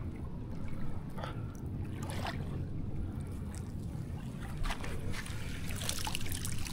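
Cast net being hauled in through shallow water at the shoreline: a steady low rumble with a few faint splashes and drips, growing busier near the end as the net is lifted from the water.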